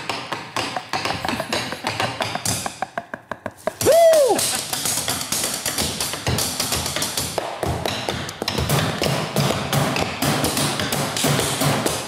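Drumsticks gripped in boxing gloves, and the gloves themselves, drumming a fast rhythm on a hard studio desk: dense, rapid tapping that thins out briefly around three seconds in. A short gliding vocal cry about four seconds in, then low thuds join under the taps in a steady beat.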